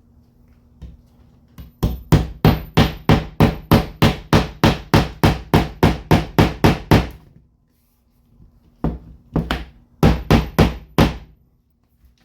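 Hammer driving cable staples into plywood to fasten electrical cable: a fast, even run of about sixteen blows, a pause of over a second, then about five more.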